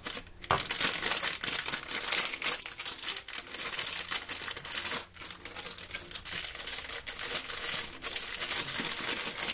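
A foil blind-bag pouch and the clear plastic bag inside it crinkling as they are pulled open by hand: a dense run of crackles with a brief lull about five seconds in.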